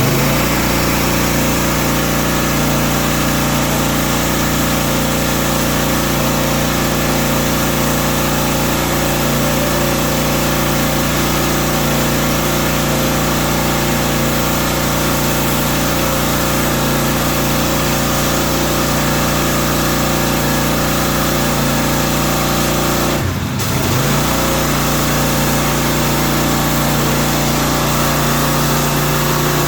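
Engine-driven pressure washer running steadily, its engine note under a dense spray hiss. About 23 seconds in the sound dips briefly and the engine note shifts, then runs steady again.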